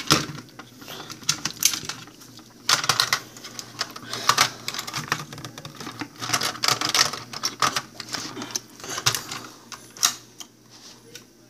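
Plastic smoke alarms being handled: irregular clicks, taps and knocks of their cases against each other and the hands.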